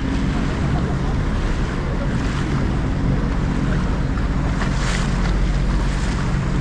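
Jet ski engine idling with a steady low hum, under wind buffeting the microphone and water washing around the hull.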